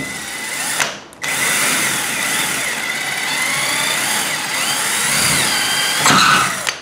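Cordless drill-driver running at a batten fixing point in a plasterboard ceiling, driving a screw into a drywall plug. It runs briefly, stops for a moment about a second in, then runs again steadily until it cuts off just before the end.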